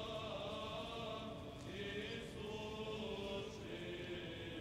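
Orthodox church choir chanting in slow, held chords that move to a new pitch every second or two.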